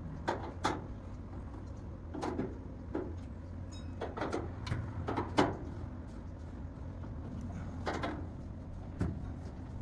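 Scattered clicks and clunks, about ten over several seconds, from screws, tools and metal panels being handled while a dryer is taken apart. A steady low hum sits underneath.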